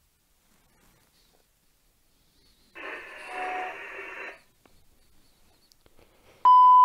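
Radio-like static hiss lasting about a second and a half, followed near the end by a loud, steady, high electronic beep.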